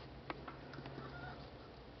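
Jack Russell terrier's faint wet mouth clicks, two in the first third of a second, with a low steady drone for about a second and a half.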